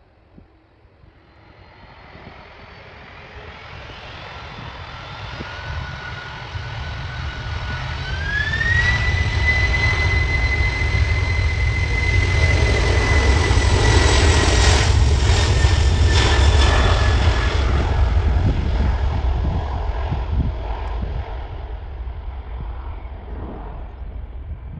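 Boeing 747-400F's four jet engines at takeoff power, loud. The sound builds steadily with a whining tone that rises sharply in pitch about 8 seconds in, peaks with a heavy rumble around the middle, then fades as the aircraft moves away.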